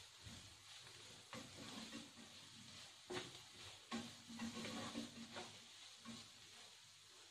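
Diced potatoes sizzling faintly in a non-stick frying pan as a spatula stirs them, with a sharper scrape against the pan every second or so.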